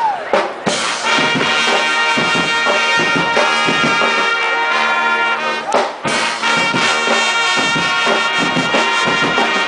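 Street brass band playing, its horns holding long sustained notes with a short break about six seconds in.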